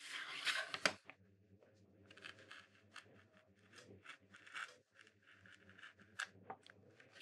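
A thin plywood woodblock rubbing and sliding against the bench hook as it is turned and set in place, then a small carving knife scratching faint short strokes into the wood.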